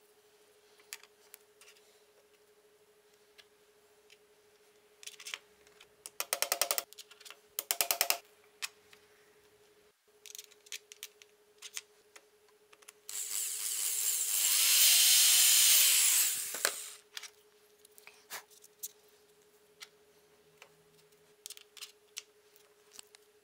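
A handheld electric drill runs for about three and a half seconds, two-thirds of the way in, its pitch rising and then falling as the trigger is squeezed and eased, drilling a pilot hole for a hinge screw through a steel centering guide. Before that come two short bursts of rapid clicking and light knocks from handling the guide and hinge.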